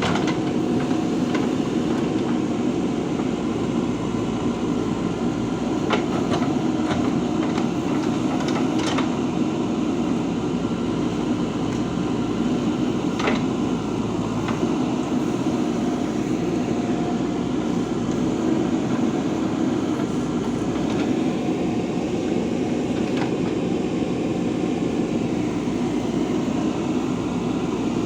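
JCB 3DX backhoe loader's diesel engine running steadily while digging, with a few short knocks now and then.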